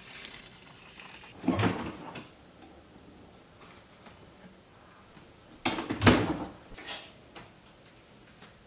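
Kitchen doors being opened and shut: two sudden bumps with a rattle, about four seconds apart, the second the louder, and a small click near the start.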